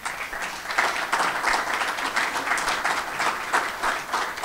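Audience applauding: many hands clapping at a fairly even level.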